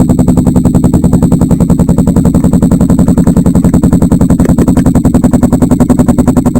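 Kawasaki Ninja 250 Mono's single-cylinder four-stroke engine idling through an Akrapovic aftermarket exhaust, a steady, rapid, even train of exhaust pulses.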